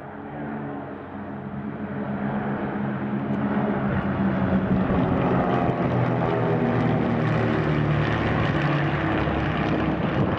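A formation of five single-engine propeller planes flying overhead, their engines growing louder over the first few seconds and then staying loud as they pass, with the engine note sinking slightly.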